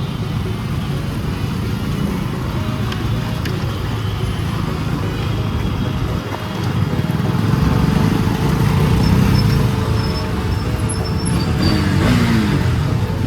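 Motor vehicle on the road: steady engine, road and traffic noise, getting louder about halfway through, with a brief falling pitched sound near the end.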